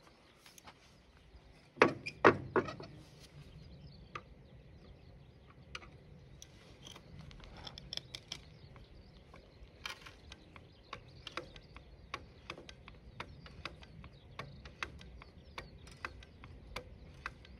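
Hand-lever grease gun clicking as it is pumped, forcing grease into the track-adjuster fitting of a mini excavator's rubber-track undercarriage, which tensions the track. Two sharp knocks come about two seconds in, then short clicks follow, a few a second.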